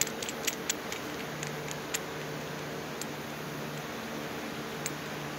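A steady mechanical hum with a few faint low tones in it, with a scatter of light clicks, most in the first two seconds and one more near the end.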